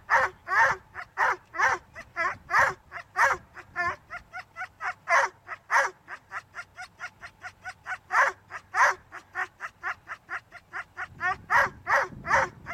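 Whippets held on the start line of a lure course, yelping and barking without a break, about three high, sharp yelps a second: the eager, frustrated crying of sighthounds straining to be slipped after the lure.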